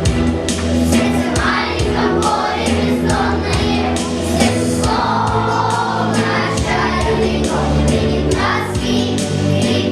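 A choir singing a song over an instrumental backing track with a bass line and a steady beat.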